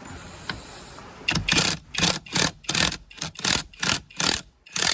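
Impact wrench run in short bursts, about two or three a second, starting about a second in and stopping suddenly near the end, as it works loose the steering-wheel retaining bolt.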